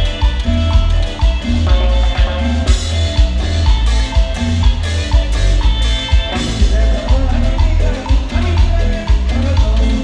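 Live band playing Latin dance music: heavy bass under timbales and cowbell struck in a steady rhythm, with a keyboard melody. A run of sharp, bright percussion strikes comes in the middle.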